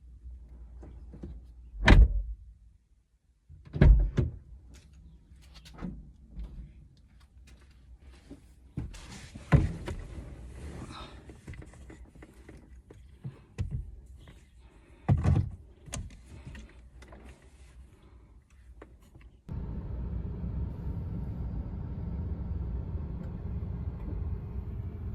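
A few loud thumps and knocks, with handling noise between them, as doors are shut. About three-quarters of the way through, they give way to the steady low hum of a car running, heard from inside the cabin.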